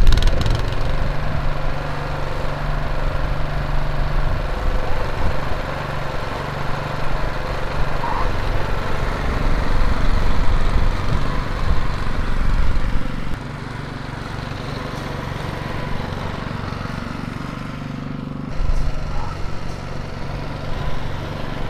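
Honda single-cylinder engine of an Allett Kensington 20H cylinder (reel) mower running steadily just after being started. It drops suddenly in level about 13 seconds in.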